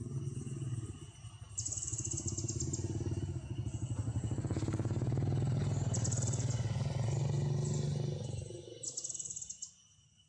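A small engine running with a low, steady hum, growing louder to a peak and then dying away sharply about eight seconds in. High buzzing insect trills come in three short bursts over it.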